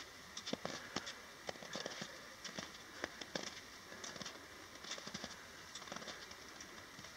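Footsteps in soft snow: short, irregular crunching steps, about three a second, from hikers climbing a snowy trail.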